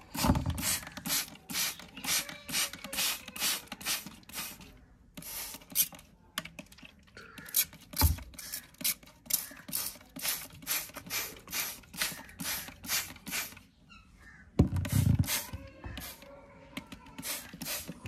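Hand-held plastic trigger spray bottle squeezed over and over, about three quick spritzes of water a second, each a short hiss. The spritzing breaks off briefly twice, and there is a louder thump about fifteen seconds in.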